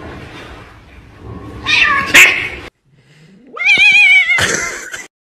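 A calico cat's yowl that rises in pitch and then wavers, about three seconds in, ending in a harsh hiss. About two seconds in there is a shorter, harsh cat cry.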